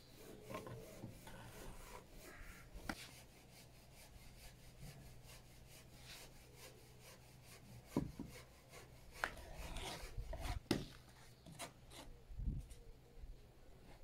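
Steel brick trowel scraping wet mortar along the top of a concrete block wall, with a few sharp taps of the trowel knocking a block down into its mortar bed, mostly in the second half.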